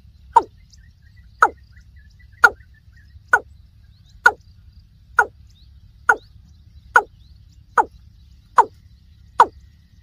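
Watercock calling: a loud, short note falling in pitch, repeated evenly about once a second.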